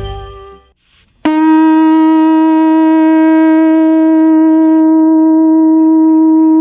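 Music fades out, then about a second in a conch-shell trumpet (pututo) is blown in one long, steady note that starts suddenly and holds without wavering.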